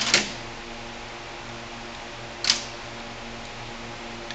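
Metal hand tools clinking: two sharp clinks at the very start and one more about two and a half seconds in, over a steady low hum.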